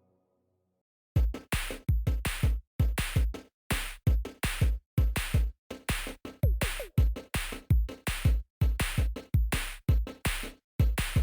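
Background electronic music with a fast drum-machine beat, starting about a second in after a moment of silence.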